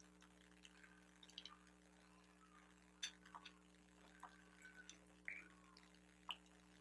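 Near silence: a few faint, short clicks and light handling noises over a low steady hum.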